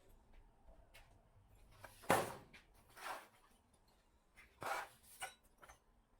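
A few scattered knocks and clunks with small clicks between them, the loudest about two seconds in.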